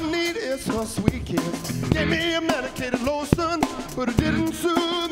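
Live blues band playing: drum kit hits with a wavering lead melody and electric guitar over it.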